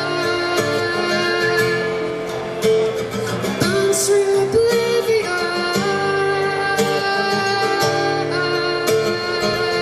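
Live music: a woman singing long held notes over guitar accompaniment.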